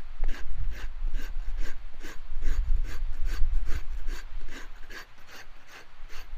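The sharp, squared spine of a Habilis Bush Tool knife scraping bark off wood in quick, even strokes, about four a second, over a low rumble.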